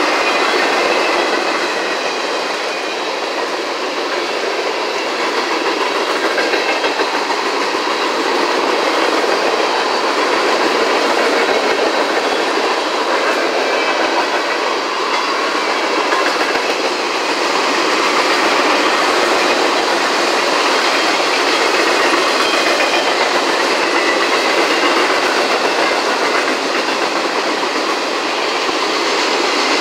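Freight cars of a CSX manifest train (boxcars, tank cars and covered hoppers) rolling steadily past at speed: a continuous loud rolling rumble of steel wheels on rail, with faint high-pitched squeals coming and going.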